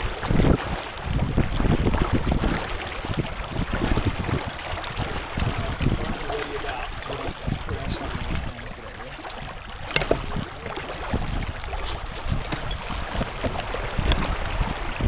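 Wind gusting over the microphone on a small boat, buffeting unevenly, with water noise beneath. A single sharp knock about ten seconds in.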